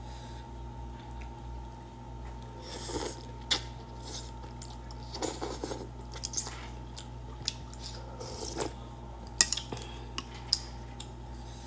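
Eating noodle soup: slurping udon noodles and chewing, with several sharp clicks of chopsticks and a spoon against a ceramic bowl, a cluster of them near the end.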